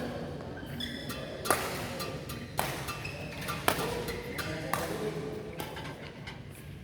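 Badminton rally: rackets striking a shuttlecock, four sharp hits about a second apart, with fainter clicks and short high squeaks between them.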